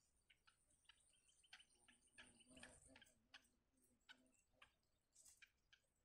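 Near silence, with faint irregular ticks and clicks and a thin high whine through the first half.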